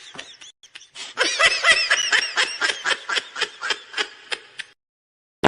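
Goofy cartoon-style laughing sound effect: a high-pitched snickering laugh in quick pulses, about five a second. It breaks off just after the start, picks up again about a second in, and trails off before the end.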